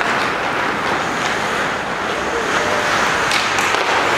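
Steady wash of ice hockey rink noise during play: skates scraping the ice and spectators in the stands, with a few faint clicks.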